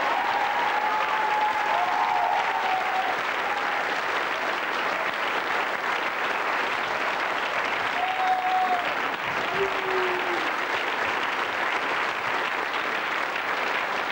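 Studio audience applauding steadily, with a few short calls rising above the clapping near the start and twice later on.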